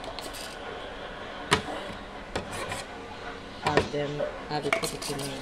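Rubbing and scraping at a nearly empty mayonnaise jar as the last of it is worked out, with a few sharp clicks and knocks of the jar being handled.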